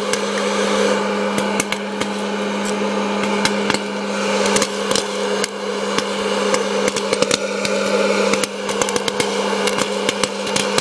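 Hot-air popcorn machine running: its fan motor hums steadily with a constant low tone while kernels pop inside in many sharp, irregular cracks.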